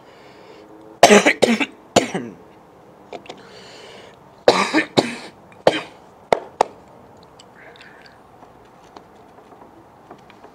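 A man coughing hard in short fits of two or three coughs, the coughing that follows a hit of smoke. A couple of sharp clicks come just after the last fit.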